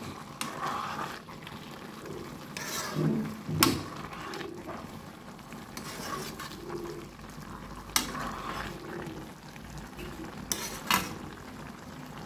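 Metal spoon stirring a thick curry in a steel kadai, scraping through it with several sharp knocks of the spoon against the pan, while the curry sizzles on the heat.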